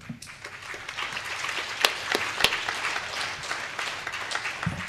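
Audience applauding: the clapping builds up quickly just after the start and dies away near the end.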